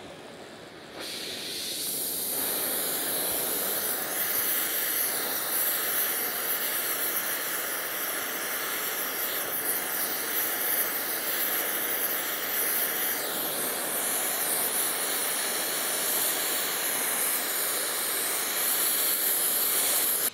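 Gas torch flame hissing steadily as it heats the bearing journal of a seized shaft to break it loose. The hiss starts about a second in and fills out within another second.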